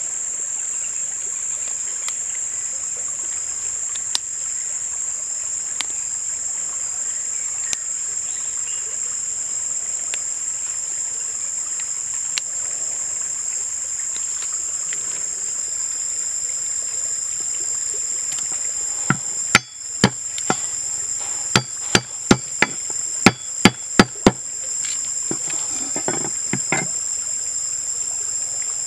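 Steady high-pitched drone of insects, with a quick run of about ten sharp knocks about two-thirds of the way through.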